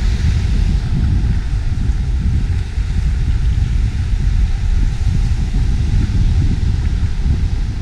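Wind buffeting the action camera's microphone, a heavy, steady rumble, with the hiss of breaking surf fainter beneath it.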